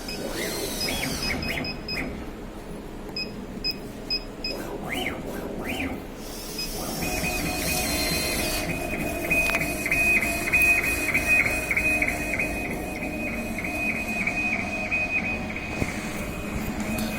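Two-head CO2 laser engraving machine at work: short electronic beeps, then stepper motors whining up and down in pitch as the heads move. From about seven seconds in, a steady high motor whine pulses regularly as the gantry shuttles back and forth, over a steady machine hum.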